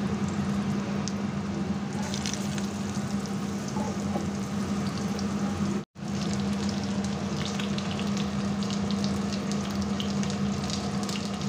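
Battered topse fish frying in hot oil in a wok: a steady sizzle with scattered crackles, over a steady low hum. The sound drops out for an instant about halfway through.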